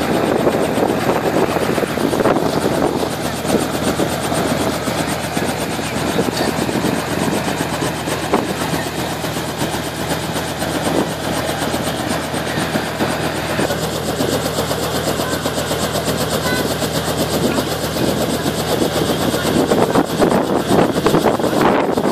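Small Robinson piston helicopter running steadily on the ground at idle, engine humming and main rotor turning.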